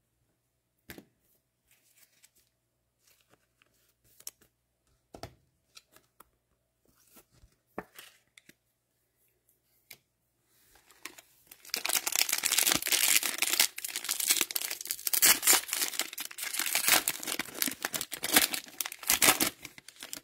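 A few scattered light taps and handling sounds, then, from about halfway through, a dense stretch of loud tearing and crinkling as a wrapper on an NFL Optic trading card fat pack is torn open.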